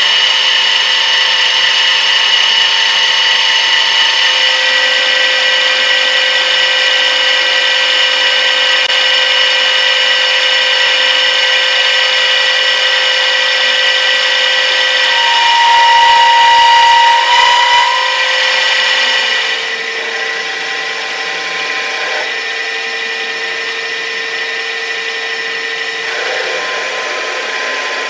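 Knuth VHF 1 drill-milling machine running, its spindle drive giving a steady whine of several tones. A higher tone comes in for a few seconds about halfway through, then the sound drops somewhat and runs on at a slightly different pitch.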